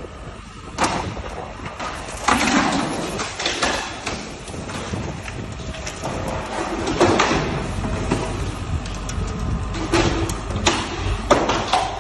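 A demolition grab tearing into a Volvo B7TL Plaxton President double-decker bus body for scrap: metal crunching and clattering, with several sharp bangs over a low, steady machine rumble.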